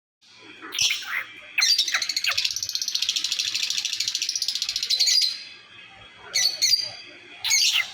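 Parrots calling: a couple of short chirps, then a fast chattering trill of about ten pulses a second for some three and a half seconds, followed by two more short calls near the end.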